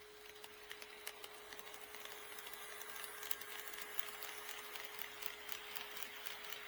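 HO scale model train rolling along the track, its wheels making a rapid clicking over the rail joints that grows louder and denser over the first few seconds as it approaches. A faint steady hum sits underneath.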